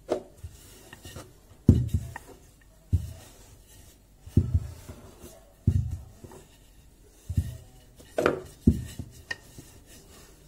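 Wooden rolling pin rolling out piadina dough on a floured tabletop: a dull thump at the start of each stroke, roughly every second and a half, with soft rubbing in between.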